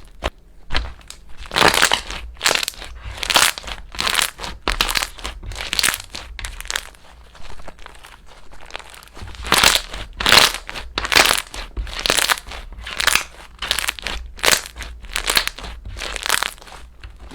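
Slime being worked by hand: a run of short, noisy squishes and crackles, irregularly about one or two a second.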